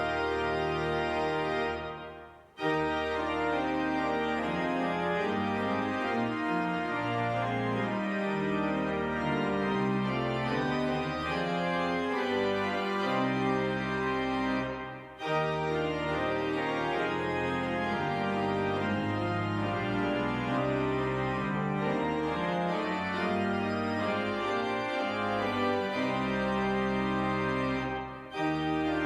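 Organ music in sustained chords, with three short breaks between phrases: about two and a half seconds in, near the middle, and near the end.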